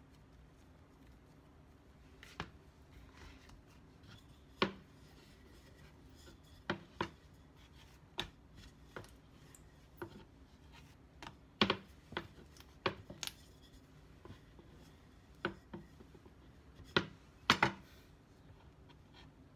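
About eighteen sharp, irregular knocks and taps of a wooden rolling pin and hands against a plastic cutting board while dough is rolled out and pressed flat. The loudest come around twelve and seventeen seconds in.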